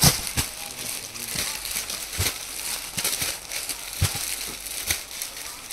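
Plastic-wrapped clothing packets crinkling as they are handled, with several dull thumps as packets are put down on the sheet-covered floor. The loudest thump comes right at the start.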